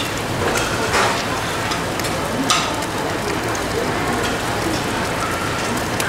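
Steady sizzling hiss of food frying on a hot griddle, with small crackles and soft clicks.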